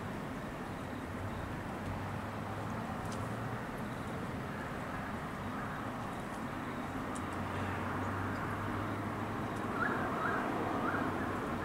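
Steady outdoor suburban background noise with a low hum of distant traffic, and three short bird chirps about ten seconds in.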